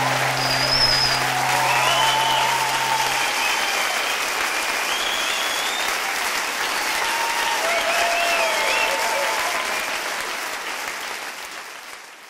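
Audience applauding with scattered cheers, while a guitar's last chord rings out under it for the first three seconds or so; the applause fades out near the end.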